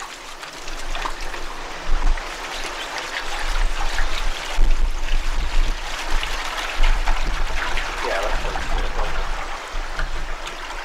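Water pouring in a steady stream from a plastic jerrycan into a white plastic HDPE water tank.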